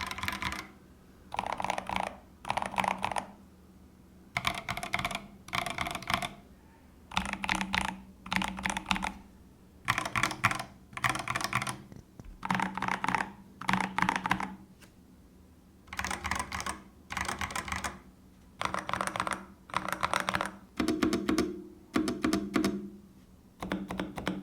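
Typing on mechanical keyboards, including the Epomaker TH80-X with pre-lubed Flamingo linear switches, in short bursts of keystrokes about a second long with brief pauses between, comparing the sound of two boards. The TH80-X's typing sounds noticeably dampened, while the other board sounds brighter and slightly hollow.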